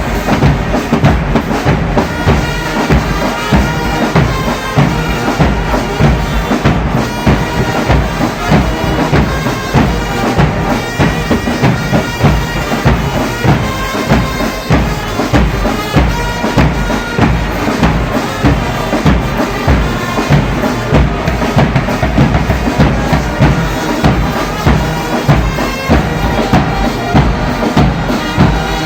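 Church brass band playing a piece with a steady drum beat, the horns holding sustained chords.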